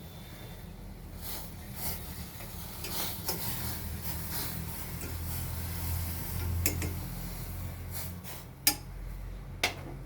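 Tulsi tea boiling in a pan on a gas stove: a steady low rumble from the burner and the boil, with scattered clinks of a metal utensil against the pan, two sharp ones near the end.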